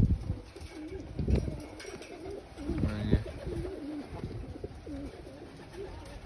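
Pigeons cooing over and over in low, wavering coos, with a few sharp knocks at the start, about a second in and about three seconds in.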